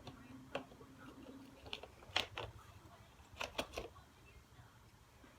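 A handful of light plastic clicks and taps from a Nerf blaster being handled and adjusted, about six in all, the loudest about two seconds in.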